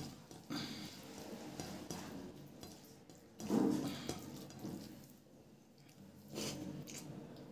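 Fingers squishing and mixing rice with chicken curry on a plate, soft wet sounds in a few short spells, the loudest about halfway through. Near the end a mouthful is taken and eaten.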